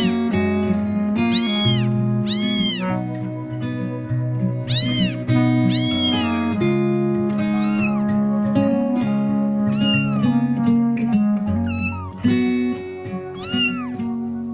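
A cat meowing over backing music: about a dozen separate meows, each rising and falling in pitch, spaced a second or so apart.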